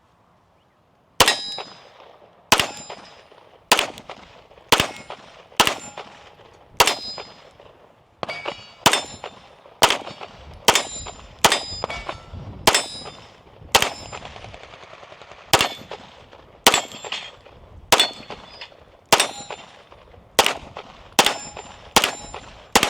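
9mm Staccato P pistol fired in a steady string of about twenty shots, roughly one a second, each followed by the metallic ring of the bullet striking steel targets.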